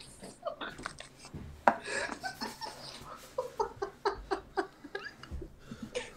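A woman laughing hard in short, breathy bursts, with one sharp knock a little under two seconds in.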